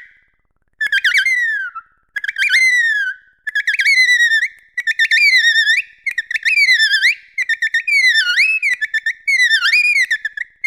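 Bottlenose-type dolphin whistling: a run of about eight short, high whistles, each about a second long, the pitch wavering and sweeping up and down, with sharp clicks between them.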